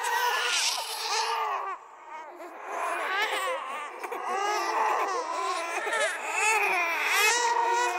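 Several babies' cries layered on top of each other as a horror sound effect: overlapping, wavering wails, with a brief lull about two seconds in before the crying swells again.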